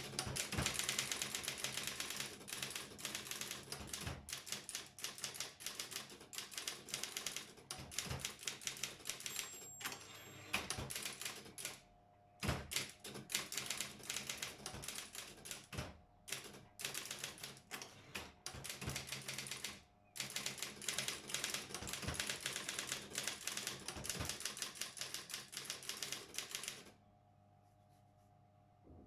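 Brother 4612 electric typewriter typing, a fast run of key strikes with a few short pauses and occasional single louder strikes, stopping near the end; a faint steady hum remains after the typing stops.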